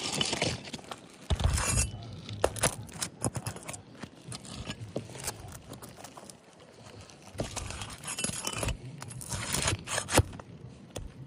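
A metal tool scraping and clinking against roofing nails and asphalt shingles as the nails are pried out. It is a run of sharp clicks with scrapes in between.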